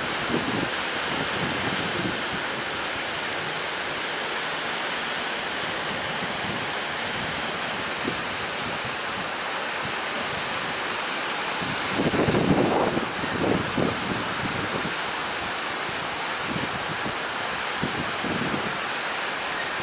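Strong wind blowing on the microphone over steady sea surf and breaking waves. A louder gust buffets the microphone a little past halfway.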